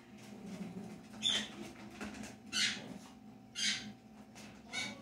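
An animal giving four short, high-pitched calls about a second apart, over a faint steady hum.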